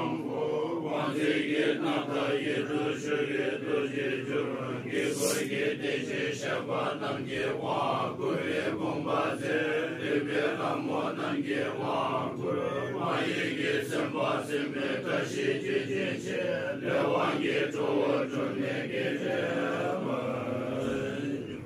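Group of Bhutanese Buddhist monks chanting together in low voices, a steady, continuous recitation.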